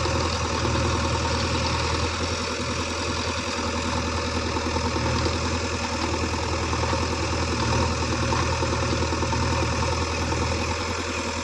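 JCB 3DX backhoe loader's diesel engine running steadily at a low, even pitch.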